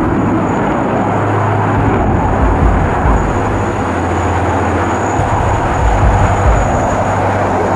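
Twin Snecma M88 turbofan engines of a Dassault Rafale fighter in flight: a loud, steady rushing jet noise as it pulls a hard turn.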